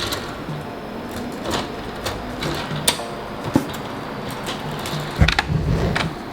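Irregular plastic clicks and rattles of Lego pieces being handled and a toy claw being worked, with a louder clatter about five seconds in, over quiet background music.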